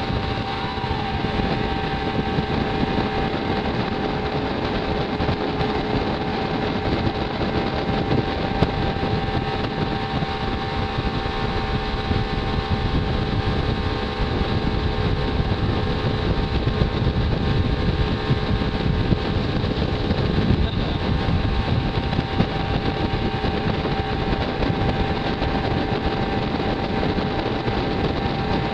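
Motorboat engine running steadily at towing speed, with a constant rush of wind and water noise under its hum.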